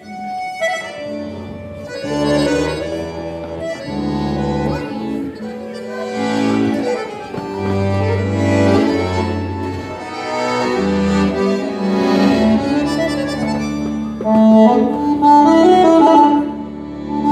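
Three accordions begin playing a tune together, held chords over a moving bass line, swelling louder near the end.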